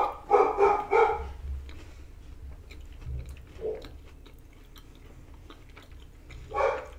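Pet dog barking: a quick run of three or four barks, then a single bark about three and a half seconds in and another near the end.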